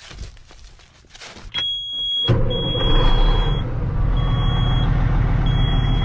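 A semi truck's diesel engine starts about two seconds in and then runs steadily. A high electronic warning beep sounds on and off inside the cab.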